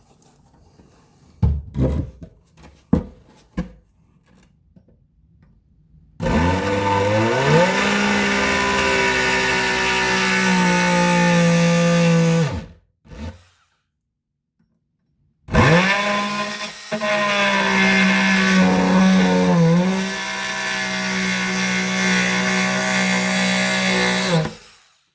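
Ridgid JobMax oscillating multi-tool with a saw blade making two cuts into a wooden board to notch it: two runs of about six and nine seconds, each rising in pitch as it spins up and dipping at times under load. A few knocks come before the first cut.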